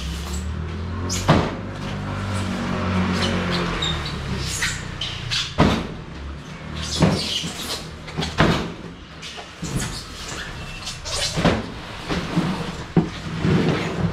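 A vehicle engine runs with a low, steady rumble for the first few seconds, then a series of sharp knocks and clunks follows.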